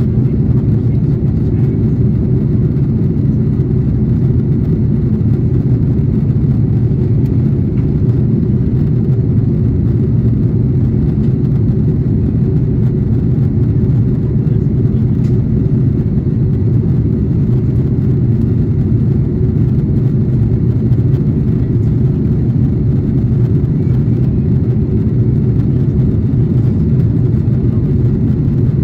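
Steady cabin noise inside an Airbus A330-300 airliner in flight: a constant low rumble of the engines and the airflow past the fuselage.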